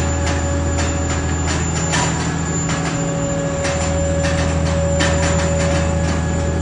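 Tyres and steel structure of the heavy-haul rig carrying a hydrotreatment reactor, creaking and squealing under the load as it moves, over a steady low engine drone. A held squeal tone runs through it, with irregular clicks and creaks.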